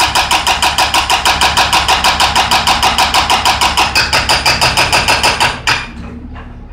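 Hydraulic breaker on a Cat mini excavator hammering a concrete floor slab, a fast steady rattle of about ten blows a second. The hammering stops near the end, leaving the excavator's engine running.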